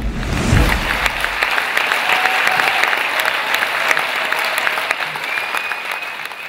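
Crowd applause, steady dense clapping, as the last of the show's music dies away in the first second and a half; the clapping fades out at the very end.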